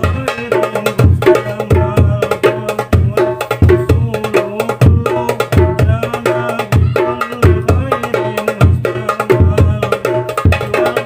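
Hadroh drums played together in a steady repeating rhythm: sharp, quick darbuka and tam (rebana) strokes over deep thumps from the hadroh bass drums.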